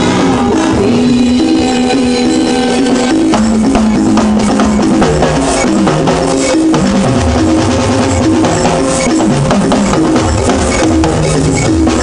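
Live Yoruba gospel band music with busy hand percussion and drums over a bass line that steps from note to note.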